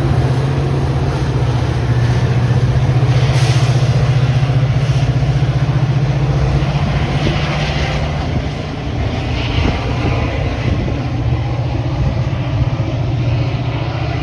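Metra commuter train's diesel locomotive running close by, a steady low drone under rumbling noise, with brief higher hissing now and then.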